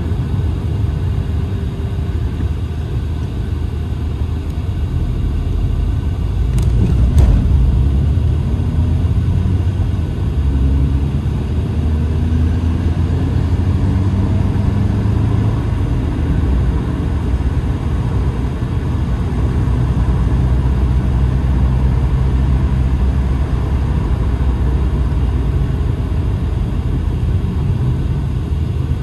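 Car cabin noise while driving: a steady low rumble of engine and tyres on the road, with the engine note gliding up a few times as the car picks up speed. A single short bump about seven seconds in.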